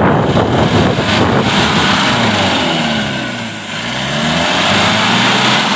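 Jeep engine revving up and down as it works along a muddy off-road track. It sounds rough at first, then from about two seconds in the pitch rises and falls several times.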